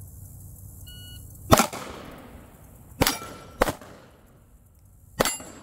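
Four 9mm pistol shots from a Glock 45, spaced irregularly, each with a short echo. A short, faint beep comes about a second in, before the first shot.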